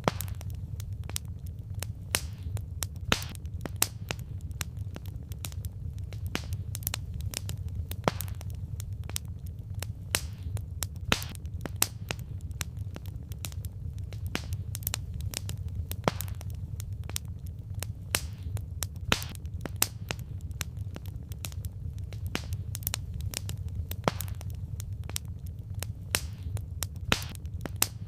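Wood fire crackling: irregular sharp pops and snaps of burning firewood, a few louder than the rest, over a steady low rumble.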